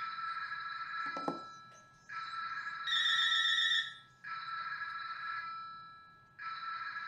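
Telephone ringing with an electronic ringtone: bursts of steady high tones about a second long, repeating roughly every two seconds.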